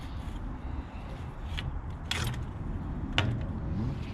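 Sharp metallic clicks and a short rattle as a bicycle's rear wheel is taken out of the frame, heard about one and a half, two and three seconds in.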